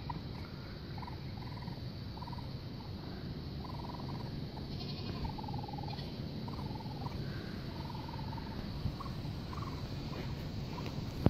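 Baby raccoons calling: a dozen or so short, high trilling cries at about the same pitch, coming every second or so, some with a fast flutter. A brief sharp knock comes at the very end.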